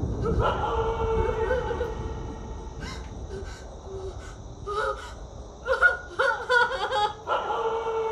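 A voice crying: a long, high wail near the start, a run of short broken sobs a little past the middle, then another long wail near the end.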